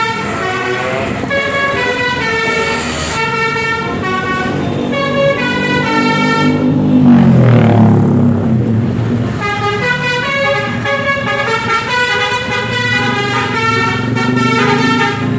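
Basuri telolet bus horn playing a quick melody, its tones stepping from note to note. About seven seconds in, a louder low horn tone slides downward before the melody resumes.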